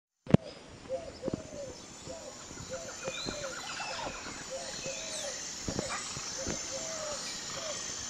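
Birds calling outdoors: short low calls repeat every second or so under higher chirps and whistles, with scattered sharp clicks and a loud click just after the start.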